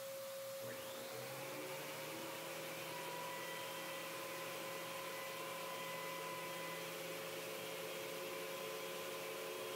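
Craftex CX125HC benchtop thickness planer running, with the shop vacuum connected to it: an even hum over a hiss, with a few steady whining tones.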